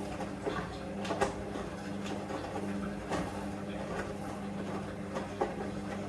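Hoover Vision Dynamic washing machine running through its wash: a steady motor hum with a few short knocks from the drum and load turning.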